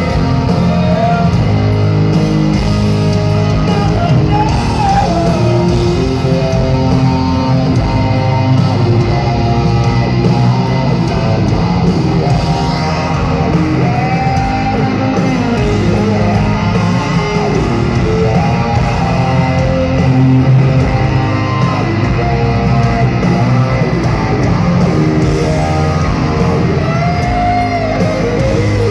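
Rock band playing live: heavy distorted electric guitars over bass and drums, loud and steady through the venue's PA as heard from the crowd.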